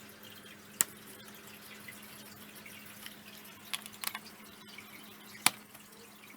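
Scattered small sharp clicks of a screwdriver and screws being worked out of the frame of an LG LED TV panel, the loudest about a second in and near the end, over a faint steady hum.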